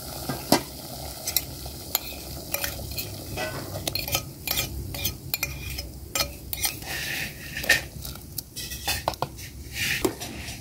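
A spoon scraping and clinking against a bowl and a metal pot, as spice paste is scraped into a pot of boiling water and stirred in, with many sharp clicks over a steady bubbling of the boiling water.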